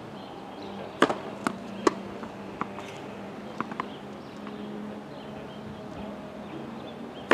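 Tennis balls struck by a racket and bouncing on a hard court: three sharp pops between about one and two seconds in, then several fainter ticks.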